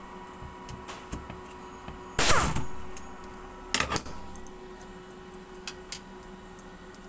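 A pneumatic wrench runs briefly on the bolts of a diesel common rail high-pressure pump, with a short whir whose pitch falls as it spins down about two seconds in, and a shorter burst near four seconds. Light clicks and metal-on-metal handling sounds come in between.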